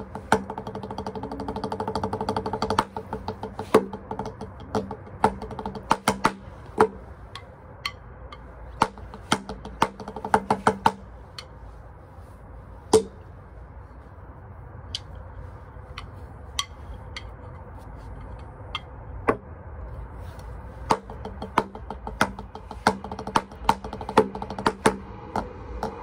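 Wooden drumsticks striking a practice pad in a freestyle: a fast roll of dense strokes near the start, then scattered single hits and short flurries with pauses between them.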